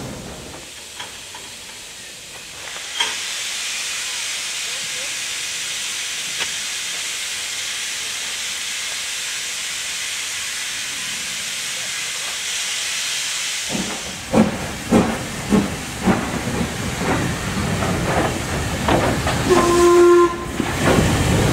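Steam locomotive letting off steam with a steady loud hiss from about three seconds in. About fourteen seconds in it starts away with heavy exhaust chuffs roughly every half second, and it gives a short whistle near the end.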